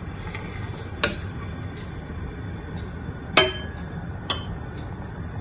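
A metal spoon clinking against an amber glass cooking pot while stirring rice porridge. There is a light clink about a second in, a louder ringing clink a little after three seconds and a third a second later, over a steady low rumble.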